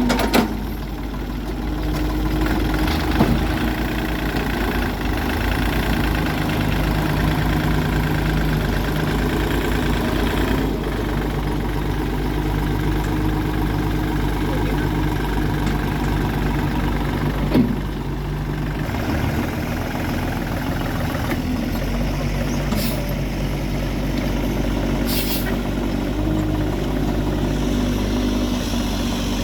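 Engine of a work machine running steadily at a constant speed, with a few sharp knocks, one near the start, one about three seconds in and one past the middle.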